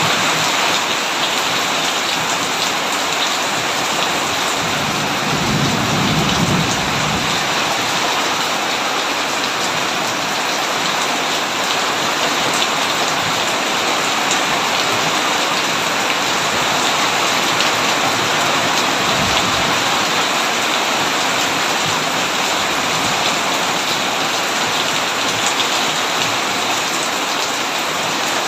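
Heavy rain pouring steadily on a tin roof, with a low rumble of thunder about five seconds in and a fainter one later.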